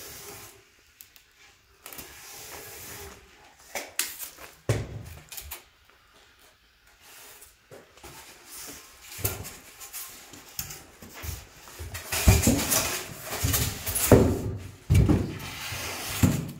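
Blocks of expanded polystyrene foam board being handled on a hot-wire foam cutter's table: scattered faint knocks and rustles, then loud repeated scraping and rubbing of foam on the table and on other foam near the end.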